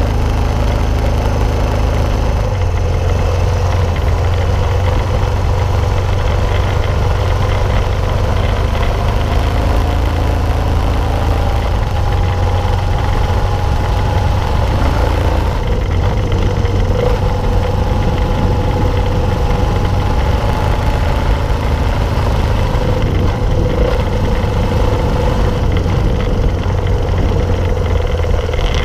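Honda 90 motorcycle's small single-cylinder four-stroke engine running under way at steady revs, its pitch holding nearly level with only slight rises and falls, over a constant low rumble.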